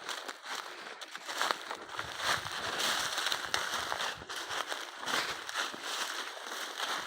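Twigs and brush crackling and snapping, with branches scraping past, as someone walks through a dense thicket: a steady run of small sharp cracks.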